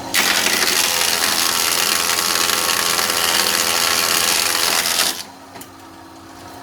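Single-phase electric wood planer cutting a board of jati belanda wood: a loud, steady hiss of the cutter for about five seconds. The cut then ends abruptly, and the motor keeps running with a lower, steady hum.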